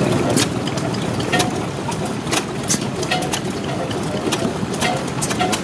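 Old Gardner single-cylinder horizontal stationary engine running slowly, a steady mechanical clatter with sharp clicks from the engine coming unevenly about once a second.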